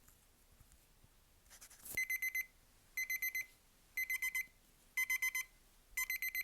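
Timer alarm beeping: clusters of rapid, high-pitched beeps about once a second, starting about two seconds in. It marks the end of the one-minute drawing time limit.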